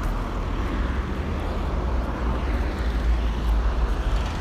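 Steady outdoor street noise with a low rumble and no distinct events, picked up by a phone's microphone.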